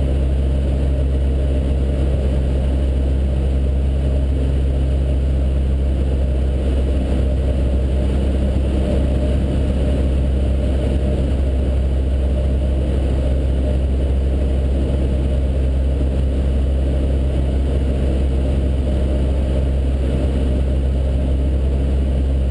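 Cessna 152's four-cylinder Lycoming O-235 engine and propeller droning steadily in flight, heard inside the cabin.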